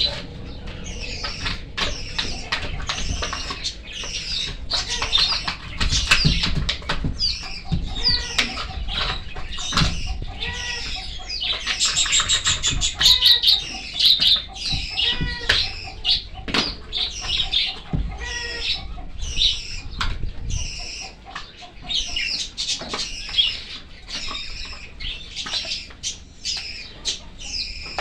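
Many small caged birds chirping rapidly and continuously, with sharp knocks and clicks from a tool cutting and breaking a plastic bucket lid.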